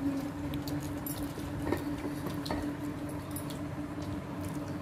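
Scattered small clicks and taps of people eating from a steel plate while a sauce packet is squeezed onto it, over a steady low hum.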